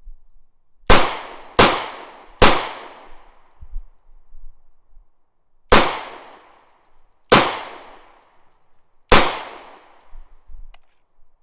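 Six gunshots: three in quick succession about a second in, then three more spaced a second or two apart, each with a ringing tail that fades away over about a second.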